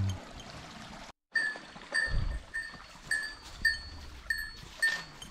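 A small metal bell jingling with each step, one clear ringing strike about every half second at a steady walking pace, over soft footfalls.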